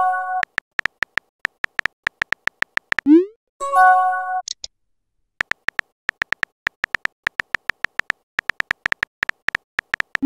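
Texting-app sound effects: a quick run of short, even keyboard tap clicks, then about three seconds in a rising swoosh as a message is sent, followed by a bright chime of several notes. After a short pause the tap clicks start again and run on.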